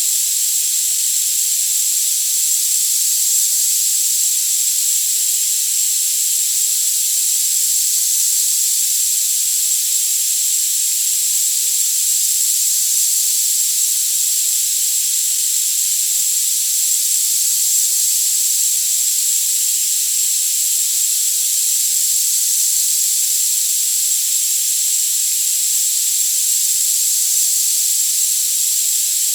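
Synthetic tinnitus-relief sound: a steady, thin high hiss with all the low end cut away, with a constant high-pitched whistling tone over it. Nothing in it changes. It is a high-frequency masking sound meant to ease tinnitus.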